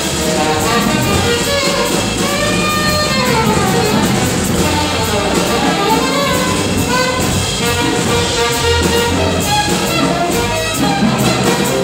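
Live small-group jazz: a saxophone plays quick, gliding runs over plucked upright bass and drums with cymbals.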